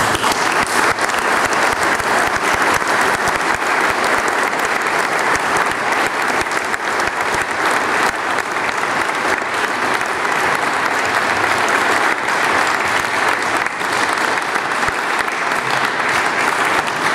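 Long round of audience applause, many people clapping, starting suddenly and thinning out near the end.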